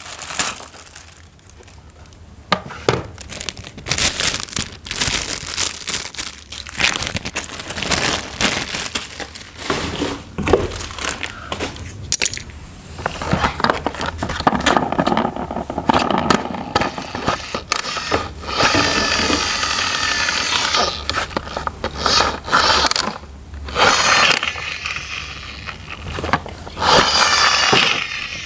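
Plastic toy train pieces and packaging being handled and assembled: irregular scraping, rustling and clicking of plastic with tearing and crinkling of wrapping.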